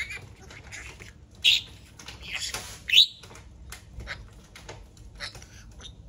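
Budgerigar chattering: a run of short chirps and warbling notes, with two louder calls about a second and a half and three seconds in, the second a quick rising chirp.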